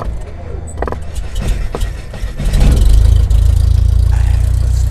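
Intro sound effect: a deep, steady rumble with sharp clicks and crackles, swelling louder about two and a half seconds in.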